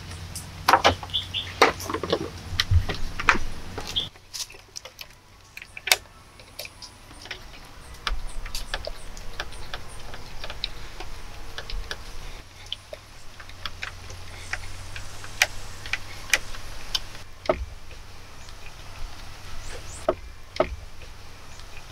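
Wooden knocks and clatter as a door panel made of sticks is handled during the first few seconds. After that, a hand screwdriver drives screws through a metal hinge into a wooden log, giving irregular small ticks and creaks with an occasional sharper click.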